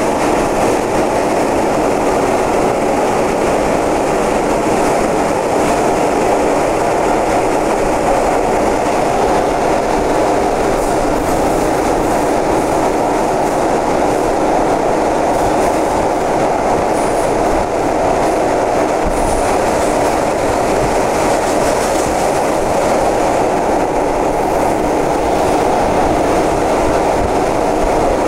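São Paulo Metro Frota E (Mafersa/Alstom) subway train running at speed through a tunnel, heard from inside the car: a loud, steady running noise of wheels on rails.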